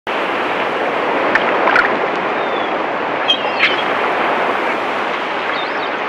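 Sea surf washing steadily as an even rush of water noise, with a few short, high chirps over it.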